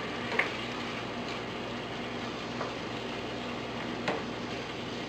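Pork in tomato sauce sizzling in a frying pan as it is stirred, with sharp clicks of the utensil against the pan, the loudest about half a second in and another about four seconds in.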